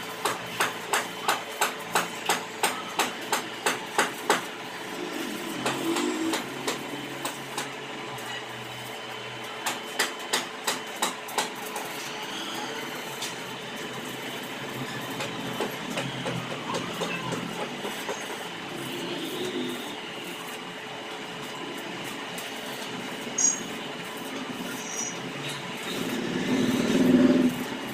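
Stick (arc) welding on a steel gate frame: the arc's steady crackle runs throughout, broken by two quick runs of sharp metallic knocks like a hammer on steel, about three a second for the first four seconds and again briefly about ten seconds in.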